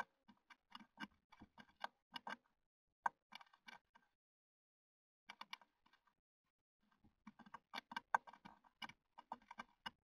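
Great tit pecking and scrabbling at the wooden wall inside a nest box: quick runs of sharp taps, several a second, in three bursts with short pauses between.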